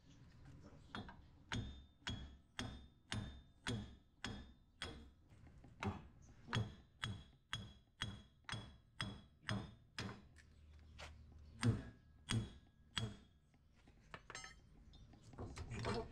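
Hammer blows on the seized front hub and wheel bearing assembly of a Ford Bronco, driving it out of the steering knuckle: a steady run of sharp metallic strikes at about two a second, many with a bright ring. After the last blow come a few lighter clinks as the hub comes free.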